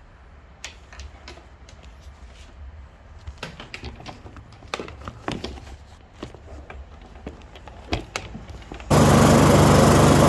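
Scattered light knocks and clicks, then about nine seconds in the Victa Ultralite lawn mower's 125cc Briggs & Stratton 450 series single-cylinder four-stroke engine catches suddenly and runs steadily and loud, now keeping running on its freshly cleaned carburettor.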